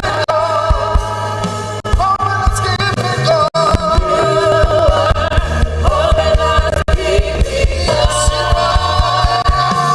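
Live gospel worship music: sung vocals held on long, wavering notes over a band with a steady bass line and drums.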